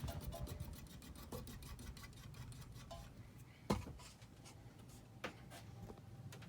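Hunter Summer Breeze ceiling fan with a rapid, even ticking that fades out about halfway through, and a single sharp knock a little later.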